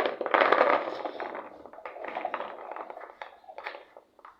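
Beans being tipped into a salad bowl: a sharp knock at the start, then a dense crackling spill for about a second, thinning into scattered small clicks and taps.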